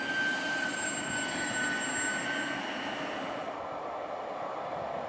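Regional electric multiple unit running close by along the platform, its wheels giving two steady high-pitched squeals over the rumble of the running gear. After about three and a half seconds the sound changes to a duller, more even train rumble without the squeal.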